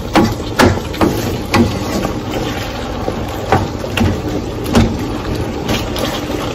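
Beef and bell pepper stir-fry sizzling in a pan as a wooden spoon stirs it, the spoon knocking and scraping against the pan at irregular moments.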